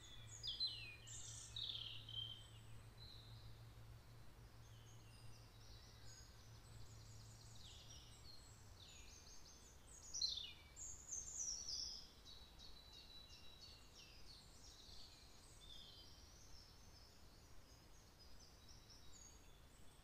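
Songbirds singing faintly: scattered short chirps, quick falling whistles and trills, loudest about a second in and again around ten to twelve seconds in. A faint low hum lies underneath and stops about nine seconds in.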